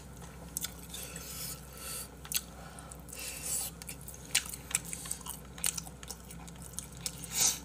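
Chewing and wet mouth sounds of people eating braised monkfish (agujjim), with many short clicks and small crunches.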